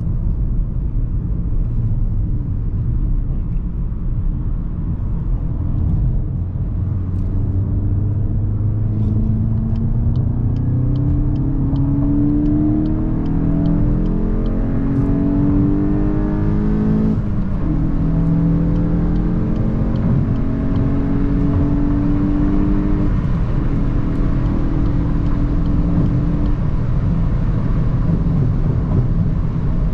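Turbocharged 2.0-litre four-cylinder of a tuned Mk8 Volkswagen GTI heard while driving: the engine note climbs steadily under acceleration, drops sharply at a gear change about halfway through, then climbs again and settles into a steady cruise. A faint regular ticking at about two a second runs through the first half.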